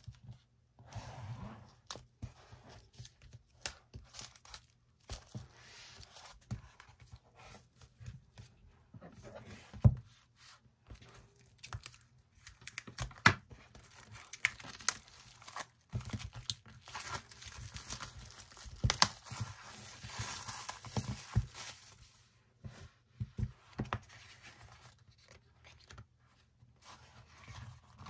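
Plastic shrink wrap being picked at, torn and peeled off an album, crinkling, with scattered sharp taps and clicks as it is handled; the tearing and crinkling are densest in the second half.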